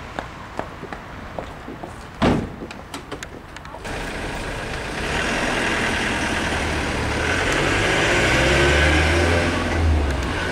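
A van door slams shut about two seconds in. Then the Ford Transit van's engine runs as the van pulls away, getting louder toward the end.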